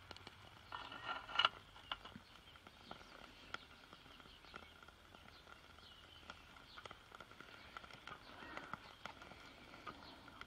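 A lit fuel tray scraping as it is slid into the metal firebox under a toy steam engine's boiler, ending in a sharp click about a second and a half in. After that only faint outdoor background with small ticks and chirps.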